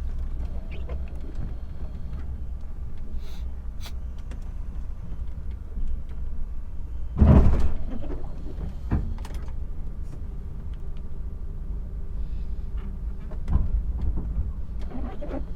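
Lorry's diesel engine running with a steady low rumble, with a heavy knock about seven seconds in and lighter knocks around nine and thirteen seconds.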